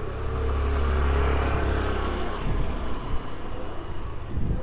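A motor vehicle's engine passing close by on the road, swelling to its loudest about a second in and fading away about two seconds later.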